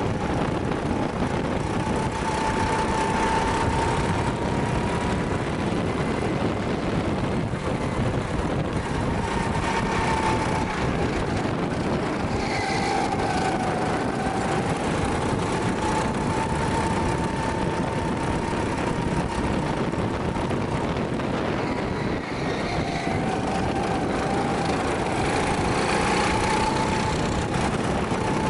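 Go-kart running at speed, heard from on board: a steady rush of motor and wind noise with a whine that repeatedly rises and falls as the kart speeds up and slows.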